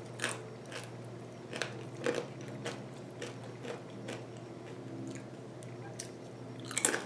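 A person chewing crunchy food, with short crisp crunches every half second or so, unevenly spaced.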